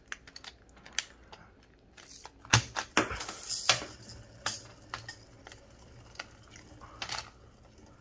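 Hard plastic clicks and knocks from handling a plastic spinner toy and its suction cup, then spinning it on a table: a string of sharp, irregular clicks, the loudest about two and a half seconds in.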